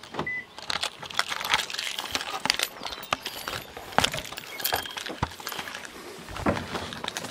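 Someone walking through tall grass and weeds with the camera in hand: a dense, irregular run of rustles, clicks and knocks from trampled stalks and camera handling.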